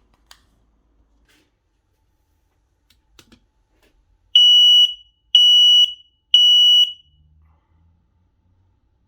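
X-Sense XS01-WT smoke alarm sounding three loud, high-pitched beeps about a second apart, in the three-beep pattern of a smoke alarm, preceded by a couple of faint clicks.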